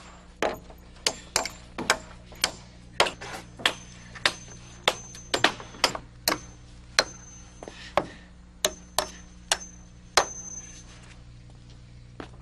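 Hand hammer driving nails into wooden framing lumber: a steady run of sharp blows about two a second, some ringing, stopping about ten seconds in.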